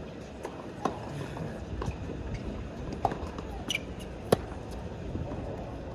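A tennis ball popping on a hard court: a series of sharp separate pops from bounces and racket strikes during serve practice, the loudest about four seconds in, over steady background crowd noise.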